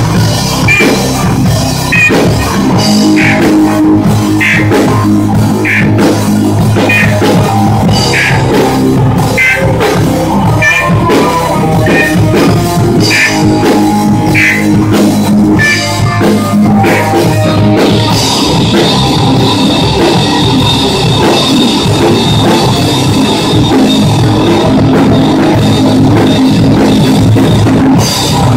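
Live rock band playing loud, with electric guitars and a drum kit. About eighteen seconds in, the sound turns brighter and steadier up high.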